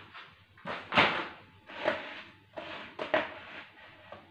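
Plastic-bodied electrical fittings being shifted and set down on a wooden tabletop: about four knocks and short scrapes.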